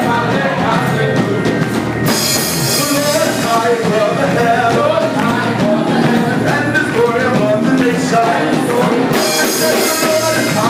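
Gospel group singing with a live band and drum kit. A bright wash of cymbals comes in about two seconds in and again near the end.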